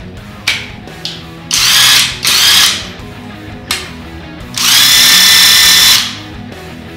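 Cordless impact wrench with a socket on an extension bar, run free in the air: two quick trigger blips, two short runs of about half a second, then a longer run of about a second and a half, each a motor whir that spins up and winds down.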